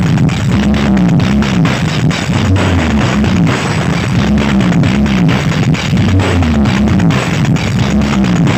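Music played loud through a large parade sound system, with a heavy bass line repeating a rising-and-falling figure.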